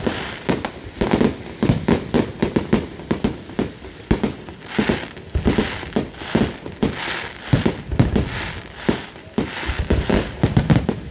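Aerial fireworks display: shells bursting in rapid, irregular succession with many overlapping bangs, and crackling from the bursting stars between them.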